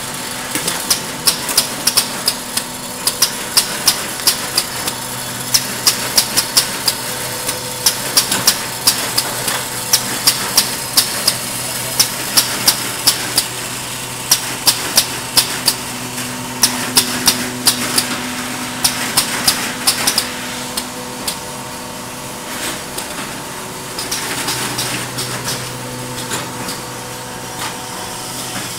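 Heavy-duty spring hopper, detangler and feed machine running: a steady motor hum under a rapid, irregular clatter of sharp metallic clicks as coil springs are handled and fed. The clicks grow sparser after about twenty seconds.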